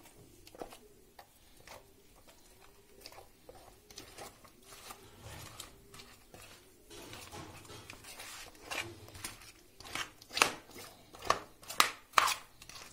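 A hand spreading thick tomato sauce over sliced potatoes in an aluminium foil tray: soft wet squishing with irregular clicks and crinkles from the foil tray, busier in the second half.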